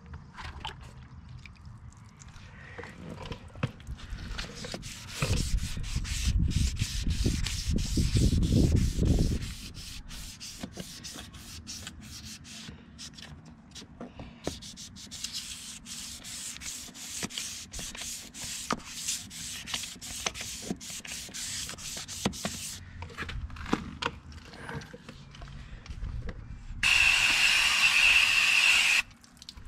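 Wet sanding of fibreglass boat gel coat by hand with a 400-grit sandpaper block: quick, scratchy back-and-forth rubbing strokes. From about five seconds in, a low rumble lasts about four seconds. Near the end, a garden-hose spray nozzle hisses for about two seconds, rinsing the sanded area.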